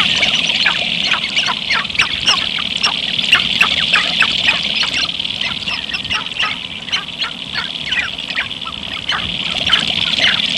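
Sharp-tailed grouse calling on their lek during the spring courtship display: a dense, rapid run of short squawking clucks and cackles from many birds, over a steady high-pitched background chorus.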